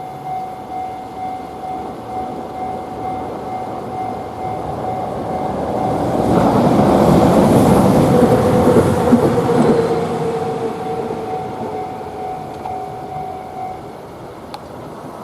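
Japanese level-crossing warning bell clanging in a steady repeating rhythm, stopping near the end. Midway a Hiroshima Electric Railway tram passes over the crossing, its rumble rising, peaking and fading away.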